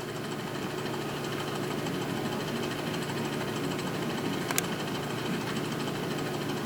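A small electric motor humming steadily, with one faint click about four and a half seconds in.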